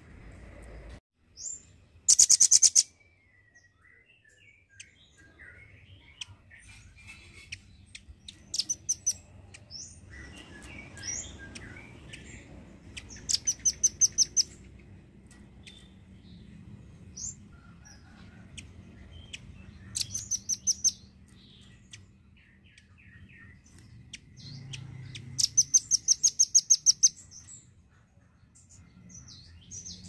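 Velvet-fronted nuthatch calling in rapid trills of sharp, high repeated notes, about seven a second. Five such trills come a few seconds apart, each a second or two long, the first the loudest, with softer single chirps in between.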